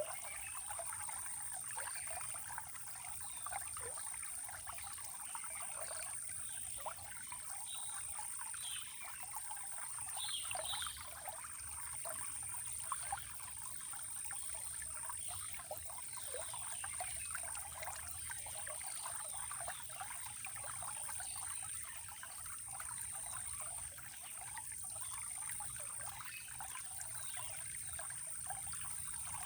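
Shallow stream trickling and splashing steadily over stones, with a few short bird chirps about ten seconds in and a steady high-pitched tone underneath.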